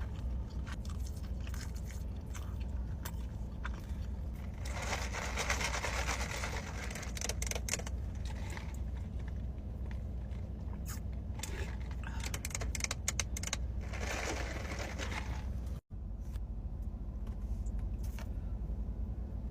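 Someone eating chicken: chewing with scattered clicks, and two longer stretches of crunching about five and fourteen seconds in, over a steady low hum.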